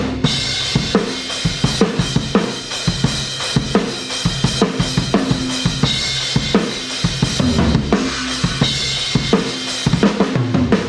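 Rock drum kit played hard: kick drum and snare hit in a steady driving beat under a constant cymbal wash. Held bass notes that move in steps run underneath, which points to the song's backing track playing along.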